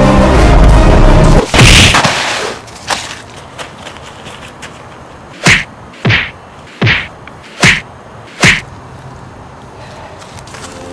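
Background music cuts off about a second and a half in with a loud swooshing hit. Then come five sharp whacks in an even beat, a little under a second apart, like fight-scene blows.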